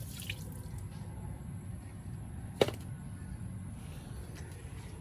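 A single sharp tap about two and a half seconds in, over a steady low rumble.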